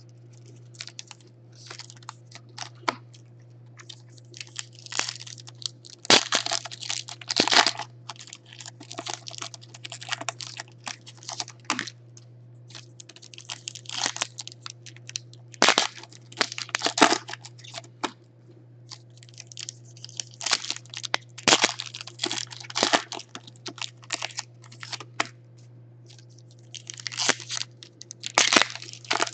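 Foil trading-card packs crinkling and tearing as they are opened by hand, in irregular bursts, over a steady low hum.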